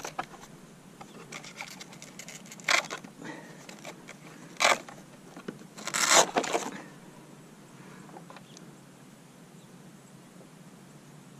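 Hands working the battery out of a crashed foam-board RC plane after its motor and speed controller shorted: three short scraping, ripping sounds, the longest about six seconds in, with small crackles of foam and plastic between them.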